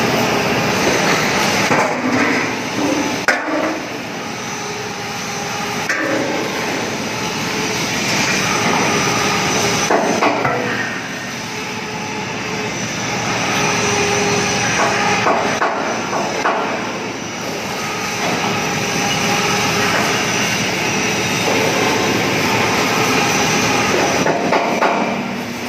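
Steady factory noise with scattered metallic knocks, including a sharp one a few seconds in and others around the middle, while a 2-ton welding positioner's geared drive slowly tilts its table.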